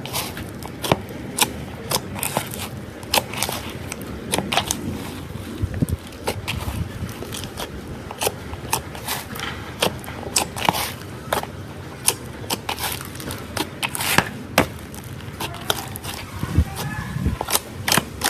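Slime being squished and worked, with irregular sticky pops and crackles several times a second.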